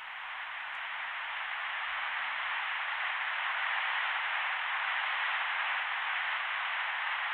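Steady static hiss, like a recorder's playback, swelling slightly over the first couple of seconds and then holding level.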